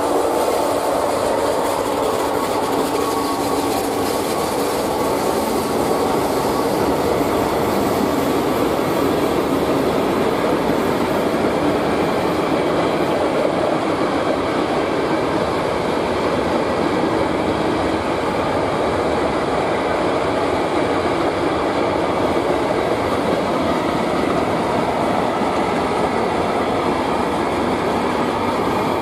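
Freight train wagons (tank cars, covered and open goods wagons) rolling past on the track: a steady rumble of wheels and running gear, with thin ringing tones of wheel squeal over it.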